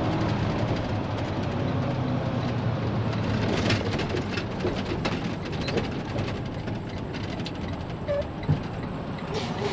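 Day-cab semi truck's diesel engine running, heard inside the cab with a steady low drone. Light clicking rattles come in from about three and a half seconds in.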